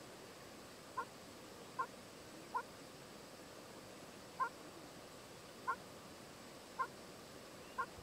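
An animal's short, low call, repeated seven times at irregular intervals of about a second, over a faint steady outdoor background.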